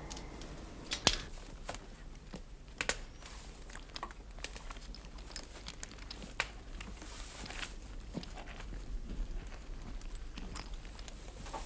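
Faint rustling with scattered small clicks and knocks from people moving about and handling things in the dark, over a low steady hum. The clearest knocks come about a second in, near three seconds, and near six and a half seconds.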